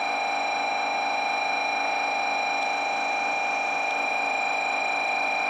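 A steady buzzing hum made of several fixed pitches sounding together, unchanging in pitch and level.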